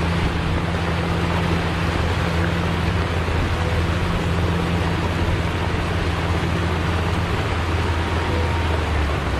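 Caterpillar 120 motor grader's diesel engine running steadily under load, a low even drone, while the blade pushes and spreads gravel aggregate with a constant gritty rushing noise.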